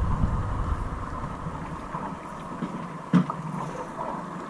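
Wind buffeting the microphone on an open fishing boat, with a low rumble that eases after about two seconds, and one sharp knock about three seconds in.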